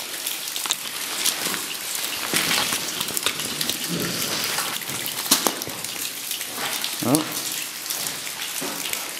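Steady rain-like patter of dripping water, with many scattered sharp drips and clicks. Brief voice sounds come about four and seven seconds in.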